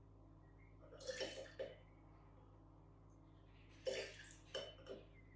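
Gin tipped from a measuring spoon into a glass jar: two short, faint splashes, one about a second in and another near four seconds.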